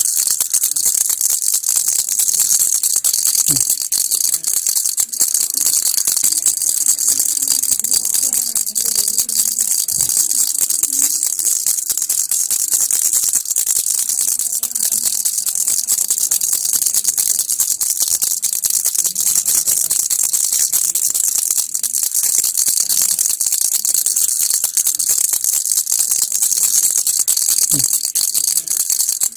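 A baby rattle shaken without pause, giving a dense, steady rattle of many tiny clicks that sounds bright and hiss-like.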